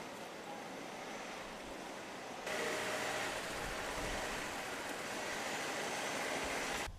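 Steady outdoor background noise like a traffic hum, with no typing clicks. It jumps louder about two and a half seconds in.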